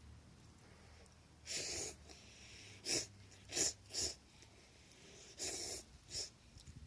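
A person's short airy bursts of breath or suction, six in a few seconds, two of them lasting about half a second and the rest brief.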